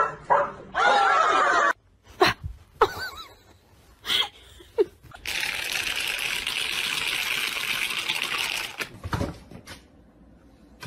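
Loud laughter, cut off abruptly, then a few short vocal sounds. A steady hiss follows for about three and a half seconds and stops suddenly, and near the end come a couple of low thumps.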